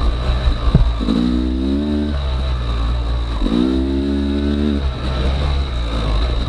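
Yamaha YZ250X two-stroke single-cylinder dirt bike engine revving up twice, about a second in and again midway, over a steady low rumble, with a sharp knock just before the first rev.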